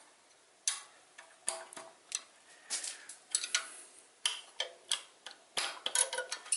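Metal clicking of a box-end wrench on the rocker arm lock nuts of a 6.7 Cummins cylinder head as the nuts are cracked loose. It is a string of sharp ticks and clinks, some ringing briefly, at an uneven pace of about two a second, starting just under a second in.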